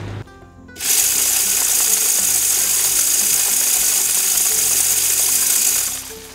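Spin-cast game feeder's spinner running, flinging corn out in a steady hiss that starts about a second in and stops shortly before the end. Background music underneath.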